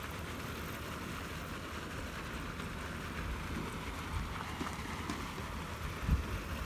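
Wind rumbling on the microphone over a steady outdoor hiss, with a short low thump about six seconds in.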